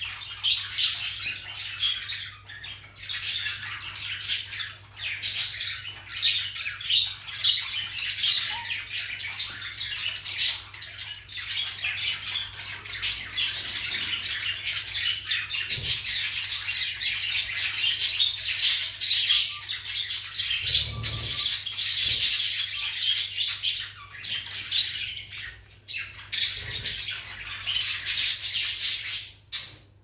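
A rainbow lorikeet chattering and squawking as it rummages and tosses through a pile of wooden popsicle sticks, the sticks clicking and clattering against one another in quick, irregular bursts.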